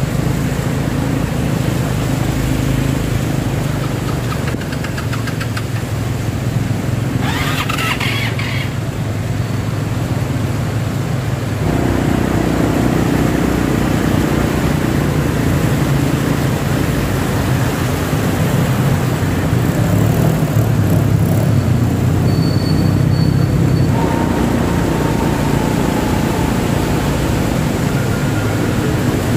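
Motorcycle and car engines running in slow, jammed traffic on a flooded city road. The sound changes abruptly about twelve and twenty-four seconds in, and there is a short, higher-pitched noise about seven seconds in.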